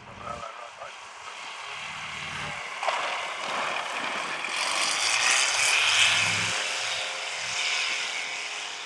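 Single-engine light aircraft's propeller engine running at full power on its takeoff run, growing louder as it passes close by about five to six seconds in, then fading as the plane lifts off and draws away.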